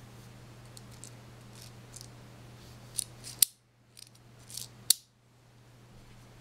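Samurai Edge gas airsoft pistol being handled, its parts giving a few sharp clicks and clacks, the two loudest about three and a half and five seconds in.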